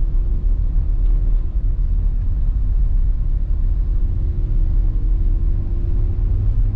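Inside a moving car: steady low rumble of road and engine noise, with a faint engine tone that slowly rises in pitch.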